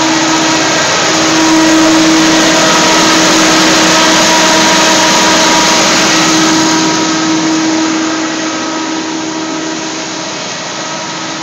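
Standby generator engine running steadily at full load, carrying the whole building's power: a loud, even engine noise with a steady hum through it, easing slightly after about seven seconds.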